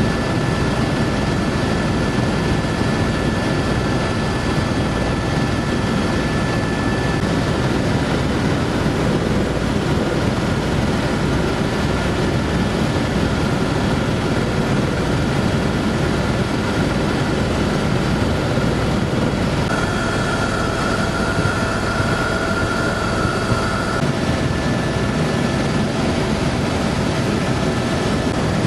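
Tour helicopter in flight, heard from inside the cabin: a steady drone of engine and rotor, with a thin high whine that comes up more strongly for a few seconds in the second half.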